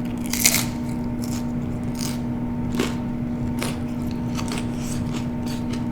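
A person chewing crunchy food close to the microphone: a loud crackly crunch about half a second in, then softer crunches roughly every second, over a steady low hum.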